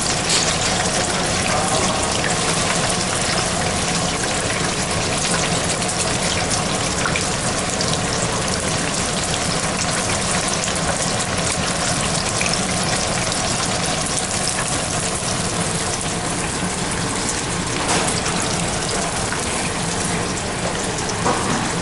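Shrimp tempura deep-frying in a pot of hot oil: a steady sizzle with continuous fine crackling from the batter. There are a couple of light knocks near the end.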